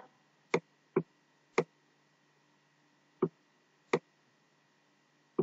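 Computer mouse button clicked about six times at uneven intervals, sharp short clicks, as handwriting is drawn onto a PDF with the pointer. A faint steady hum lies underneath.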